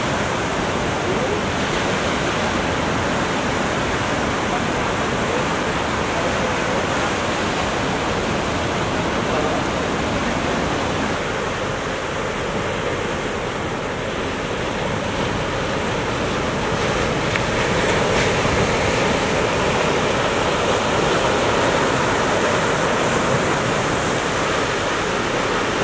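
Ocean surf: waves breaking and washing, a steady rushing noise that swells a little louder about two-thirds of the way through.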